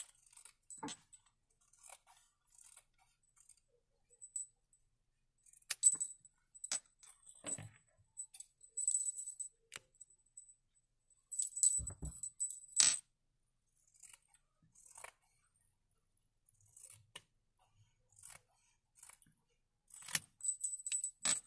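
Sewn fabric squares being cut apart along a marked diagonal line: short, separate cutting strokes and light metallic clicks and clinks from the cutting tool, with fabric being handled between them. The longest strokes come about six, nine and twelve seconds in and near the end.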